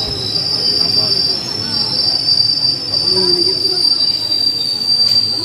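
Steel wheels of a slow-moving passenger train squealing against the rails: a loud, steady high-pitched squeal with a weaker second tone just below it, over a low rumble.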